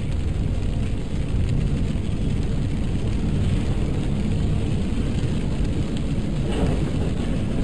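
Car driving fast on a rain-soaked road, heard from inside the cabin: a steady low rumble of tyre and road noise with rain on the windscreen.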